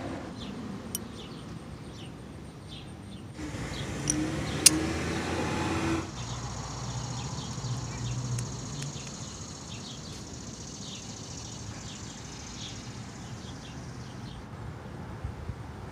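Outdoor street background noise with a vehicle going by, loudest from about three to six seconds in, a sharp click near its peak, and faint bird chirps.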